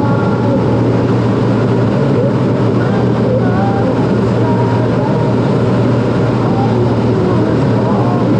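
Steady, loud jet engine and rushing airflow heard from inside the cockpit of a CT-114 Tutor jet trainer in level formation flight, its single turbojet running at a constant setting with a low hum underneath.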